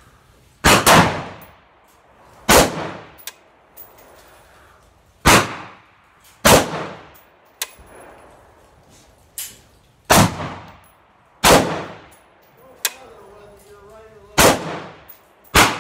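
AR-15 rifle fired semi-automatically one shot at a time, about eight shots spaced one to three seconds apart, each report trailing off in echo under the covered range roof.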